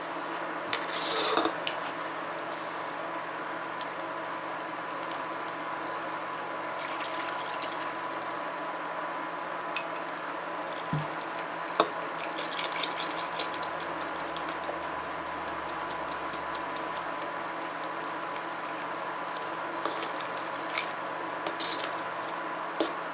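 A spoon scraping and tapping inside a wire-mesh sieve as soaked pinole is pressed through it into a pot of milk, with quick runs of sharp ticks. A short splash of liquid pouring into the sieve about a second in.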